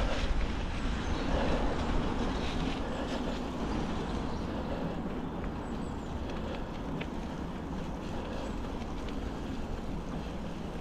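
Norco Storm mountain bike rolling along a trail: a steady rumble of tyre noise and rattling, with a few small clicks and knocks.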